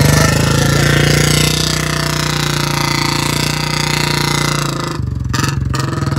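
Royal Enfield Bullet motorcycle's single-cylinder engine held at high revs, firing in fast, loud, even pulses as the rear wheel spins against the ground. The revs dip briefly about five seconds in, then pick up again.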